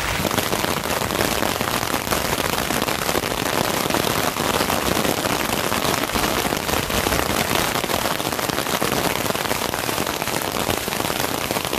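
Heavy downpour mixed with hail: a dense, steady hiss of countless small impacts on the roof, boards and scaffolding.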